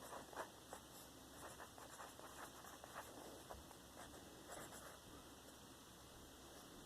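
Faint scratching of writing by hand on paper, short irregular strokes as words of a list are written out.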